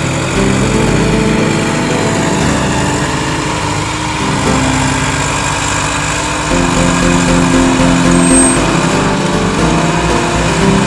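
Massey Ferguson tractors' diesel engines running, with background music over them, its held notes changing every second or so.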